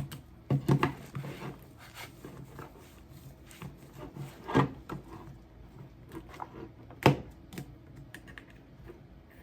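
Kitchen scissors snipping tangled braided fishing line on a baitcasting reel's spool while the line is pulled and rubbed free. There are a few sharp clicks, a quick cluster just after the start and single ones about halfway and two-thirds through, with quieter scraping and rubbing between.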